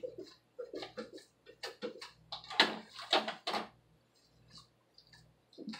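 Hands mixing and kneading a ground-meat meatloaf mixture in a bowl: an irregular run of short squishing sounds that dies away after about four seconds.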